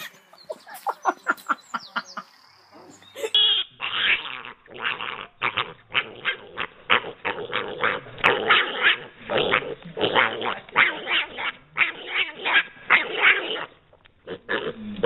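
A piglet making rapid short calls, about two or three a second, starting a few seconds in and running almost without a break before thinning out near the end.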